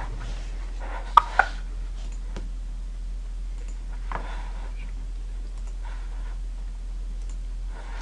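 Computer mouse clicks: two sharp clicks about a fifth of a second apart, followed by a few fainter clicks, over a steady low electrical hum.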